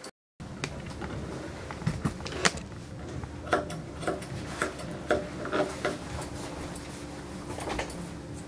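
Grooming shears snipping a puppy's coat: about ten irregular short snips with a slight metallic ring, over a steady low hum.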